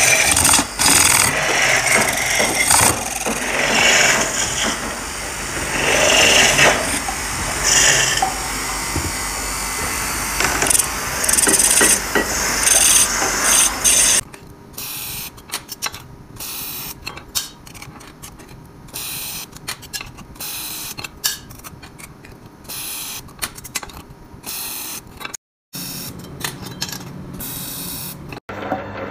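A wooden bowl blank spinning on a wood lathe while a hand-held turning tool cuts into it, a loud, rough, continuous scraping. About fourteen seconds in it drops abruptly to a much quieter sound with scattered clicks.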